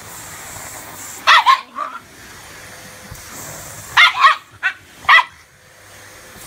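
Shiba Inu barking sharply in short bursts, a few barks about a second in and four more in quick succession around four to five seconds in, protesting a vacuum cleaner being run over her bed. The vacuum's steady running noise sits under the barks.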